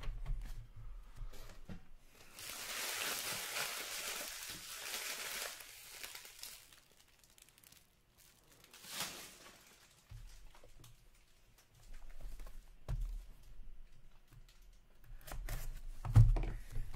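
Plastic wrapping on a box of trading cards being torn off and crinkled for about four seconds, then a shorter rip. A few soft knocks follow, with a louder thump near the end as a box is handled.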